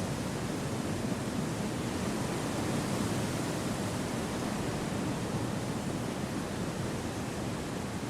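Wind blowing through a forest: a steady, even, low rush with no gusts or breaks.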